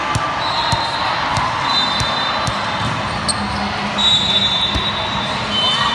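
Volleyballs being hit and bouncing on a hardwood gym floor, a scatter of sharp smacks echoing in a large hall over a steady murmur of crowd chatter. Several short high-pitched tones cut through, one about half a second in and a longer one about four seconds in.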